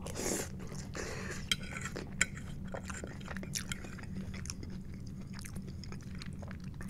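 A person chewing a mouthful of loaded tater tots, with a few sharp clicks of a metal fork against the plate, the strongest about a second and a half and two seconds in.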